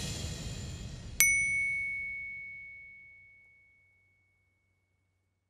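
Outro music cutting off and fading out, then a single bright bell-like ding about a second in that rings on one clear tone and dies away over two or three seconds.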